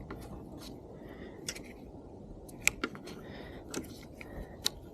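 Light clicks and taps of small motorcycle parts being handled, a few sharp ticks spaced about a second apart over a faint steady background hum.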